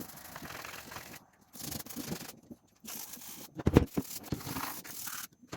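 Rubbing and scrubbing strokes on a plastic motorcycle part, in several stretches with short pauses, with one sharp knock about two thirds of the way through.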